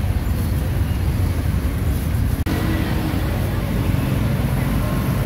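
Street traffic noise: a steady low engine rumble from passing cars and motorbikes. The sound drops out for an instant about two and a half seconds in.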